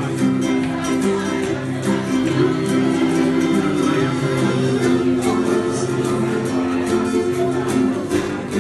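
Ukulele strumming chords at a steady rhythm in an instrumental break, with no singing.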